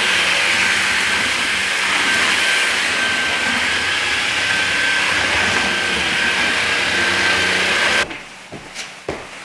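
Levoit LVAC-200 cordless stick vacuum running steadily, a whooshing motor noise with a thin high whine. It cuts off suddenly about eight seconds in, followed by a few light knocks.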